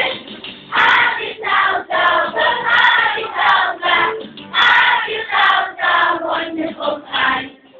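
A children's choir singing together in phrases, stopping just before the end.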